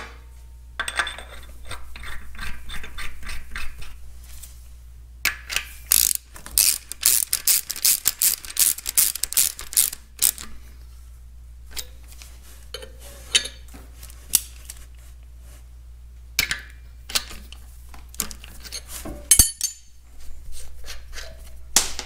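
Hand socket ratchet clicking in several quick runs with pauses between, as studs are threaded into a tractor's rear case.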